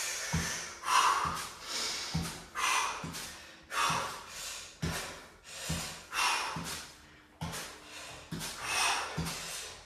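A man breathing hard under exertion, with a forceful breath about every second, over the steady footfalls of marching on the spot with high knees, roughly one step every 0.7 seconds.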